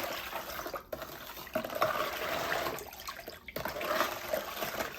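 Liquid sloshing and trickling as sugar is mixed into water for cookie batter. It runs unevenly, with brief breaks about a second in and again at three and a half seconds.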